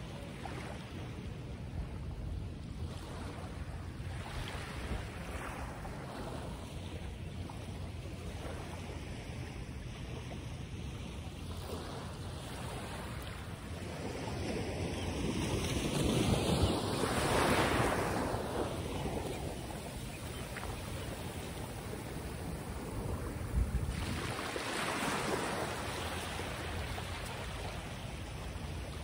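Wind rumbling on the microphone, with a louder rushing swell about halfway through and a shorter one near the end.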